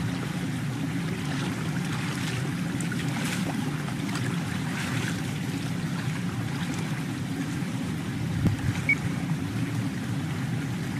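Wind on the microphone: a steady low rumble, with faint rustling of grass and brush on top.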